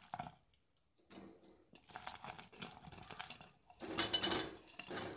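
A steel spoon scraping and clinking against a plate and a steel pan as fried vegetable manchurian balls are spooned into the sauce: scattered light clinks, loudest in a cluster about four seconds in.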